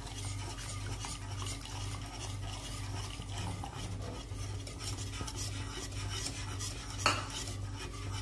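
A wire whisk stirring hot milk in a metal saucepan as a custard-powder mixture is poured in, its wires scraping and clinking against the pan in quick repeated strokes. One sharper clink comes about seven seconds in.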